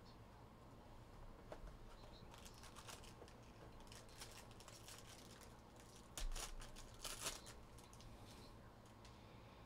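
Faint crinkling and rustling of a foil trading-card pack wrapper being handled and torn open, with two louder crinkles about six and seven seconds in.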